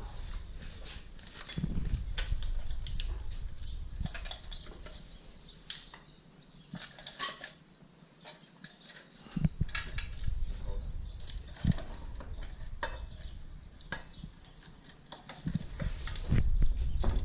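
Scattered metal clinks and knocks of hand tools and engine parts being handled while a Toyota 18RG engine's timing cover is taken off.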